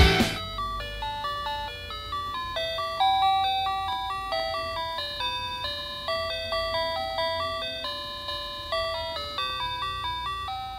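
Baby bouncer's built-in electronic lullaby playing a simple melody of clean, chime-like notes, one note at a time.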